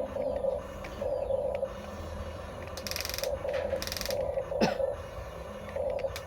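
Small electric gear motors of Huina radio-controlled construction toys whining in short repeated bursts as their parts are driven, with a few higher buzzing bursts and a single click partway through.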